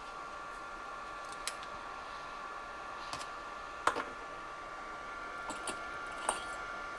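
Hot-air rework heat gun running steadily, a soft hiss with a faint steady whine, heating a circuit board to loosen the solder of an HDMI port. A few light clicks and taps are scattered through it, the sharpest about four seconds in.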